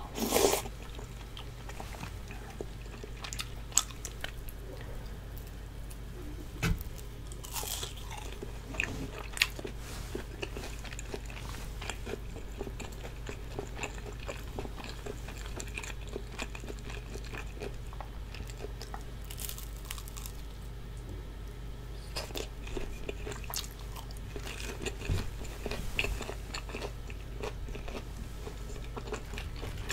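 Close-miked eating sounds of cheese tteokbokki and fried snacks: chewing and biting with sharp mouth clicks and occasional crunches, the loudest bite right at the start. A steady low hum runs underneath.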